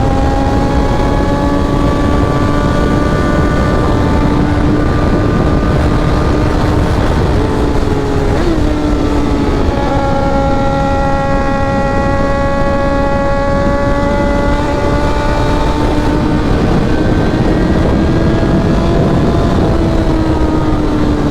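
Tuned Suzuki GSX-R1000R's inline-four engine running at steady high revs under way, its pitch drifting slowly, with a brief dip and jump in pitch about eight seconds in, over a heavy wind rush.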